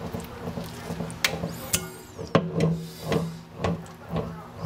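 Kitchen handling noises: wet bluegill fillets being patted on a paper towel and laid into a glass bowl, a string of light clicks and taps.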